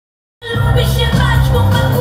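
Live amplified pop music from a band with a female lead singer, cutting in suddenly mid-song about half a second in, with a heavy bass line.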